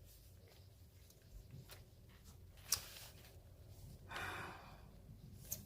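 Quiet handling of small jewelry pieces, with a sharp click about two and a half seconds in and a lighter click near the end, and a short exhaled breath about four seconds in.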